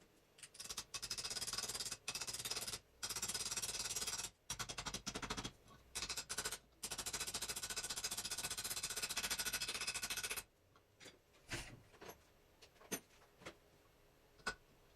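Rapid mechanical rattling from a workshop tool in several bursts over about ten seconds, followed by a few separate clicks and knocks.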